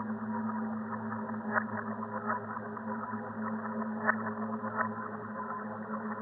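Sci-fi alien ambience sound effect: a steady low droning hum with faint higher tones above it and scattered short clicks and blips.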